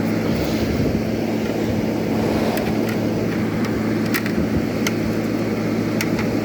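SPT 12,000 BTU air conditioner running: a steady hum from the compressor under the rush of its fan blowing hot air out the back over the coil. A few light clicks in the second half.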